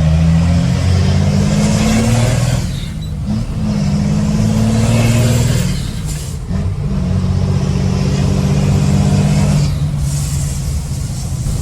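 Diesel engine of a loaded Ford Cargo dump truck pulling hard, heard from the cab with the window partly open. Its note climbs in three runs, with brief dips a few seconds apart as the gears are changed.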